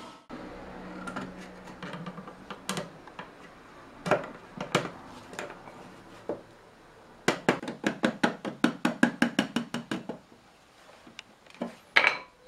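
Hammer knocking on a small wooden cherry barrel as its hoops are driven down and the head is fitted. Single knocks come a second or so apart at first, then a quick run of light taps about seven a second, then one hard knock near the end.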